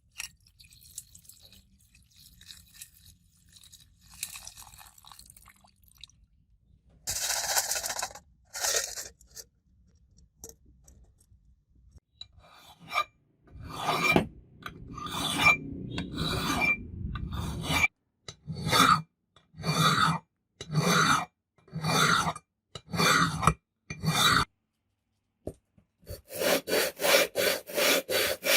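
A hand tool worked back and forth over a surface, scraping in separate strokes. A few faint scratches and two loud strokes come first, then a long run of strokes about one a second; after a short pause the strokes come quicker, about four a second.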